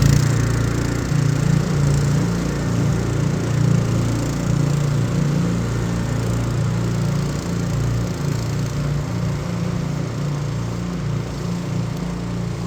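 Engine of a Shandong Mower Company remote-control lawnmower running steadily, its low hum wavering slightly in pitch and level.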